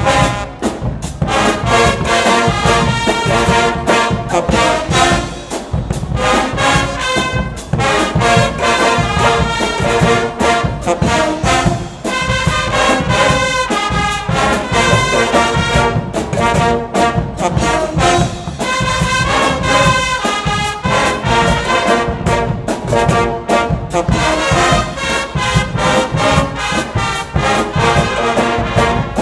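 A Guggenmusik carnival brass band playing loud: trumpets and trombones carrying the tune together over a steady beat.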